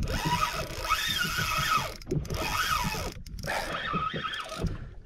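A spinning reel being cranked in while a fish is fought on light tackle: the reel's gears whir in spells, rising and falling in pitch with the cranking speed.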